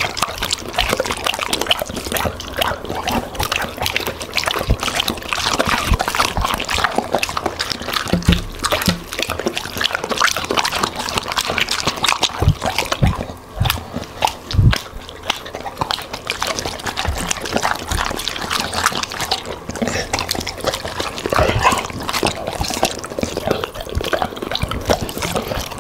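Golden retriever chewing and crunching broccoli florets and pieces of meat close to the microphone, a dense run of wet, crackly mouth sounds with a few dull thuds.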